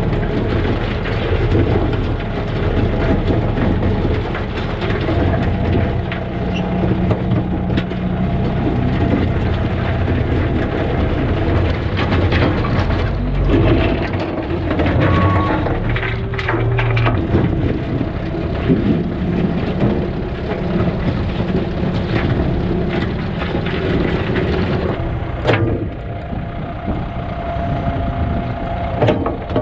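A vehicle engine running steadily while rocks clatter and crack as they are picked up and dropped.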